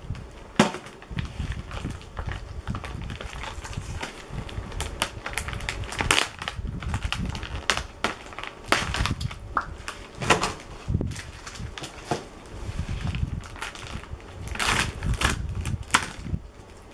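Thin plastic packaging of a DIY candy kit being handled and its tray of small plastic cups pulled apart: irregular crackling and sharp clicks, with dull low knocks.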